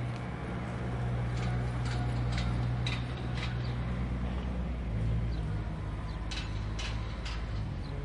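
City street ambience with a vehicle engine running at a steady low hum that shifts a little about five seconds in. Scattered sharp clicks and knocks come through it, three in quick succession near the end.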